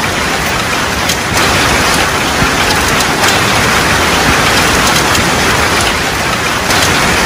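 Heavy rain pouring down on pavement, steady and loud.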